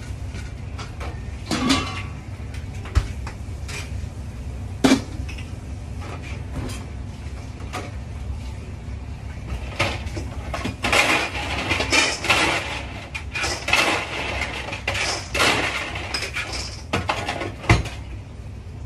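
Stainless steel pots, bowls and containers knocking and clanking as they are handled, with a few separate clanks in the first five seconds and a denser stretch of clattering from about ten seconds in. A steady low hum runs underneath.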